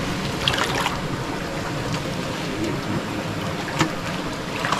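Steady rush and slosh of shallow river water around people wading, with a faint sharp click about four seconds in.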